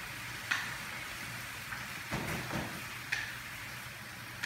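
Sauce and stock sizzling and reducing in a wok with a steady hiss. A utensil clicks and scrapes against the wok about half a second in, a little after two seconds, and about three seconds in.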